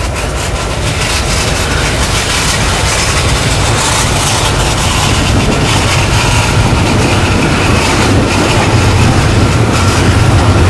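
Train rolling past on the rails with a low rumble, getting steadily louder as it comes closer.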